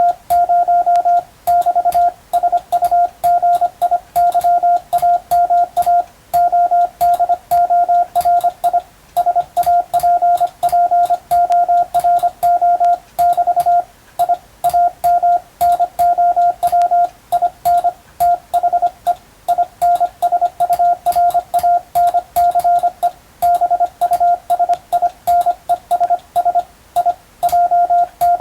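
Morse code (CW) tone keyed on and off in fast dots and dashes at a steady pace, with short pauses between words and clicks at the keying edges. It is sending telegram practice text for code-receiving training.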